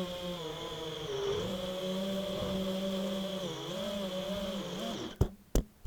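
FPV mini quadcopter's brushless motors and propellers whining steadily, the pitch wavering up and down with throttle. The sound stops about five seconds in and is followed by two sharp knocks.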